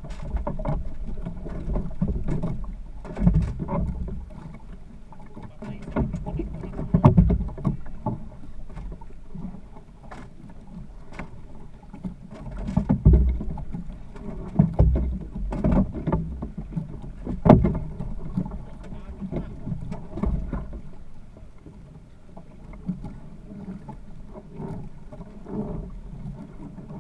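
Water slapping against a small boat's hull as it rocks at sea, with irregular knocks and thumps.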